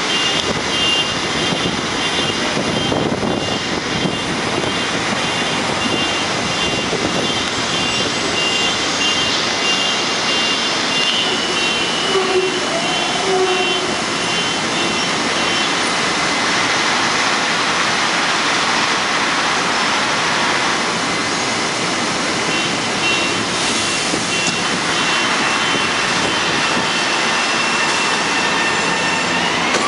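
An LIRR M-7 electric multiple-unit train standing at the platform with its doors open, its onboard equipment running with a steady loud roar and a repeated high beeping for long stretches. Just before the end a rising whine begins as the train starts to pull away.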